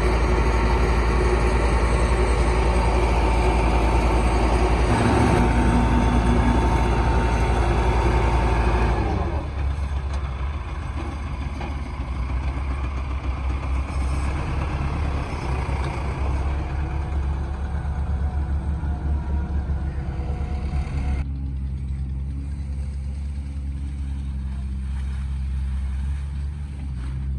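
Mud-making machine at a brick plant running with a heavy engine hum. About nine seconds in it drops to a quieter, lower running, and it thins further about two-thirds of the way through.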